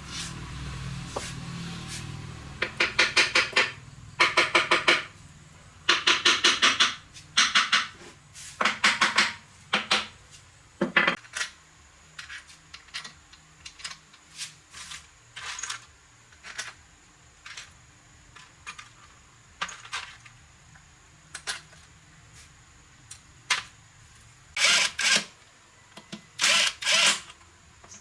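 Workshop tools at work: several bursts of about a second of rapid clicking, like a power drill or driver running briefly, then scattered single clicks and taps of metal, and more bursts near the end.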